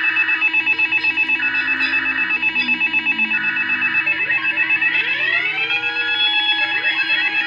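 NOAA weather radio sounding its alert alarm for a severe thunderstorm warning: rapid, even electronic pulsing over steady tones. From about halfway through, rising siren-like sweeps join in.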